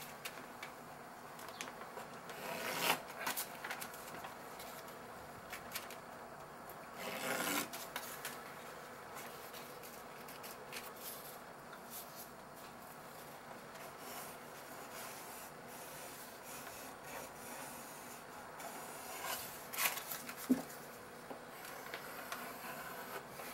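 Pencil scratching along a straight edge on the wooden underside of a cabinet, marking a line in a few short strokes with faint room tone between them.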